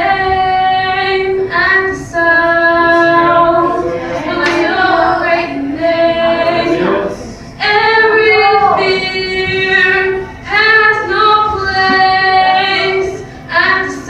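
Women singing a worship song in long, held notes, with short breaks for breath between phrases.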